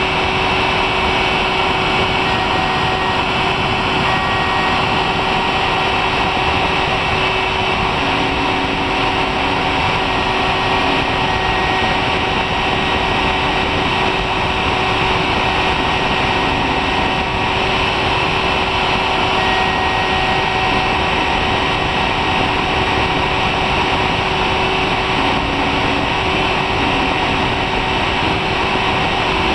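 Homemade CNC engraving machine running steadily while its spindle cuts into a brass plate, a constant hum with a few short low tones coming and going.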